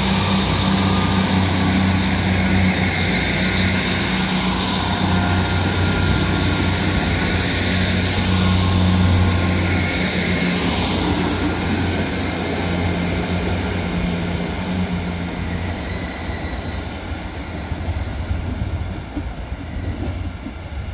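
Great Western Railway Class 158 diesel multiple unit running past and pulling away: a steady engine drone with wheel and rail noise, fading out over the last few seconds as it goes.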